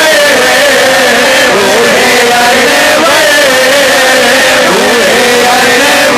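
Two men singing a naat, an Urdu devotional hymn, into microphones, with long held notes that bend and waver in pitch.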